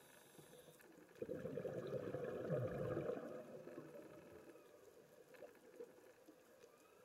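Scuba diver's exhaled breath bubbling out of the regulator, heard underwater. The bubbling starts suddenly about a second in and fades out over the next two to three seconds.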